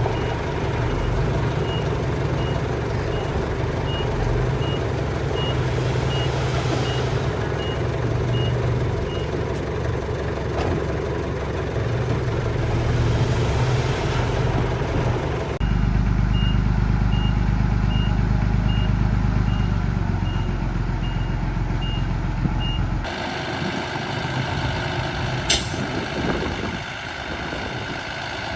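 Miniature dump truck's engine sound running steadily, with its reversing beeper sounding about three times every two seconds for two stretches. The engine sound changes abruptly twice, and near the end there is a single sharp clack.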